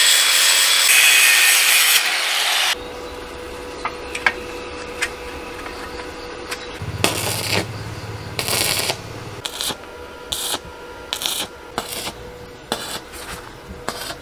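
Angle grinder grinding a steel square-tube frame, a steady high hiss that cuts off about three seconds in. Then the crackle of arc welding from an inverter welder: a longer run of about two seconds in the middle and many short bursts as the joints are tacked.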